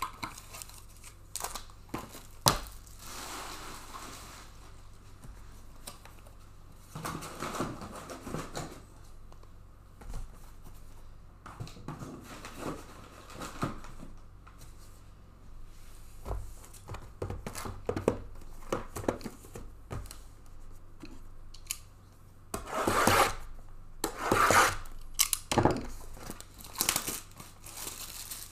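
Paper packing and box packaging crinkling and tearing as trading-card hobby boxes are unpacked and opened, with scattered clicks and knocks. There is a sharp knock a couple of seconds in, and the loudest tearing comes near the end.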